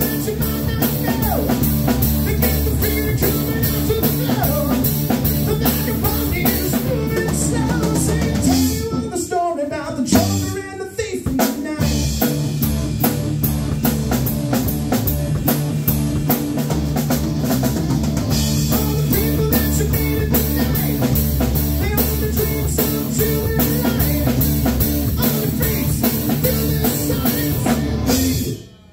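Live rock band playing loud: electric guitar, bass guitar and a drum kit. The band cuts out briefly about nine seconds in and comes back in about two seconds later, then drops out again just before the end.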